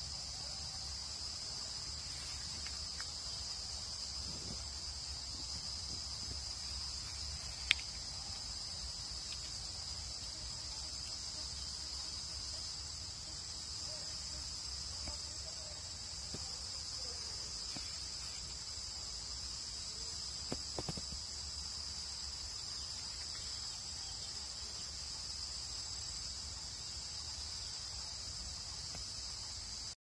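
Steady, high-pitched drone of forest insects calling without a break, with a single sharp click about eight seconds in.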